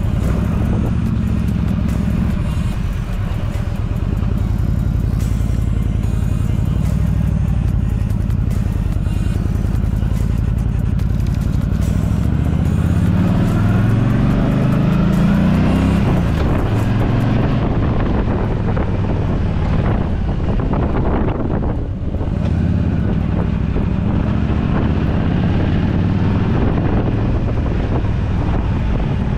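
Yamaha V Star 1300 Deluxe's V-twin engine running while riding. Its pitch rises as it accelerates about halfway through, and the sound dips briefly about three-quarters of the way in.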